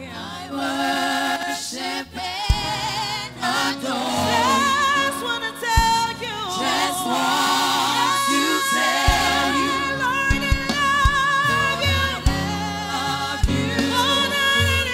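Women's gospel choir and a female lead singer singing a worship song live, held notes wavering, over instrumental backing with steady low notes and short drum thumps.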